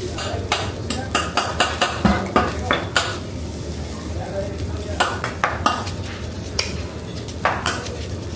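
Hibachi chef's metal spatulas clacking and scraping on a flat-top griddle in quick clusters of sharp strikes, over the steady sizzle of food cooking on the hot plate.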